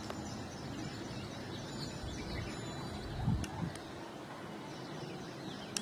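Outdoor background noise with faint bird chirps. A dull thump comes a little over three seconds in, and a few short sharp clicks follow, the last near the end.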